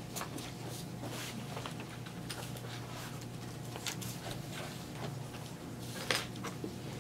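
Dry-erase marker writing on a whiteboard: a run of short scratchy strokes, with one sharper tap about six seconds in, over a steady low hum.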